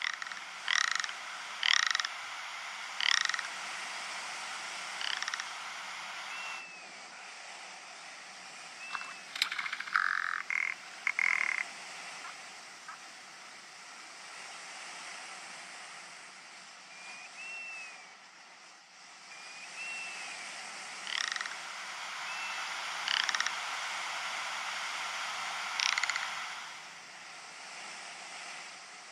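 Ptarmigan giving short, rasping croaks, spaced a second or two apart in small runs, with thin rising-and-falling chirps between them. A brief cluster of louder notes comes around ten seconds in.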